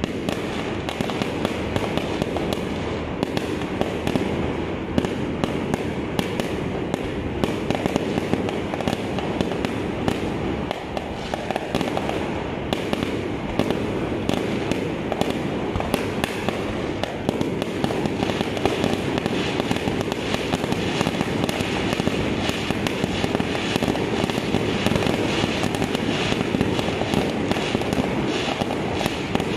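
Fireworks going off without a break: a dense, steady stream of pops and crackles with many small bangs, no pause anywhere.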